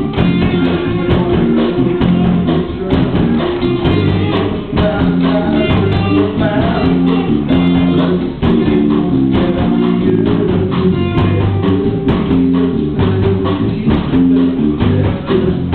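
Live rock band playing a song with guitars, bass guitar and drum kit, loud and with a steady beat.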